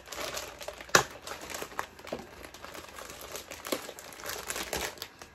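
Clear plastic packaging crinkling and rustling as it is pulled open by hand, with one sharp snap about a second in.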